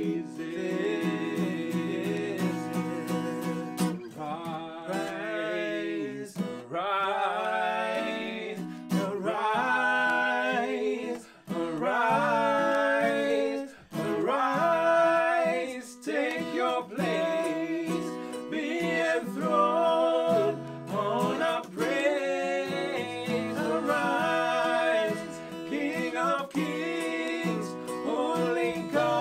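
Worship song sung by two male voices to a strummed acoustic guitar.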